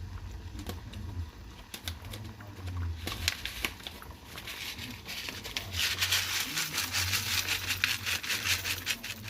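Soup-mix packets crinkling and being torn open, with scattered sharp crackles that turn into a dense, steady crinkling about six seconds in.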